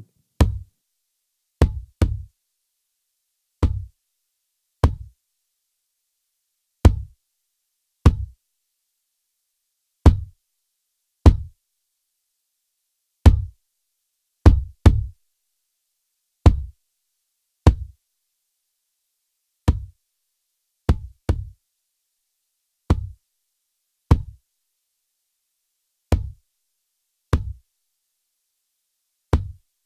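Isolated kick drum track played through a Lindell Audio 7X-500 1176-style compressor: short, really hard kick hits with a sharp click on the attack and a quick decay, about one every second and a half, some in quick pairs, with silence between.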